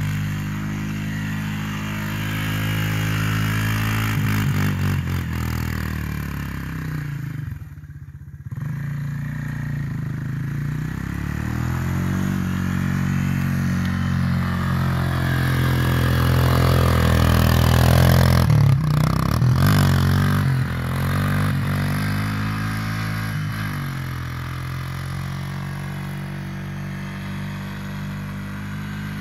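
ATV engine revving up and down as the quad spins donuts on snow, its note rising and falling with the throttle. It drops away briefly about eight seconds in and is loudest a little past the middle.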